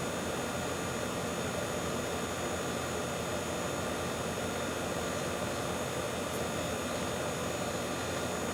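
Steady, unchanging hiss with a faint hum of constant tones underneath, like a running machine or fan.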